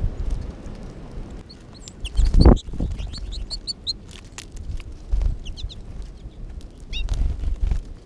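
Small finches at a seed feeder, American goldfinches among them, giving short high chirps: a quick run of notes from about two to four seconds in, and a few more later. Under them runs a low rumble of storm wind on the microphone, with a loud thump about two and a half seconds in.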